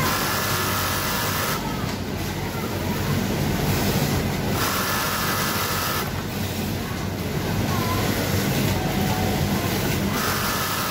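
Brother twin-needle industrial sewing machine stitching in three short runs, over the steady hum of a garment-factory floor full of machines.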